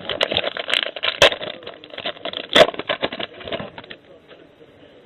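Trading cards and their foil pack wrapper being handled: dense crackling and clicking with a few sharper snaps, dying away about four seconds in.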